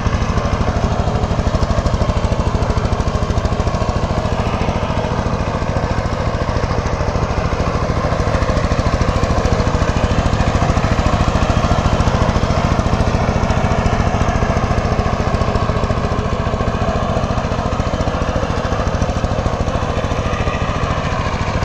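Single-cylinder diesel engine of a two-wheeled power tiller running steadily under load as it tills wet paddy mud, a rapid, even chugging that stays at one speed throughout.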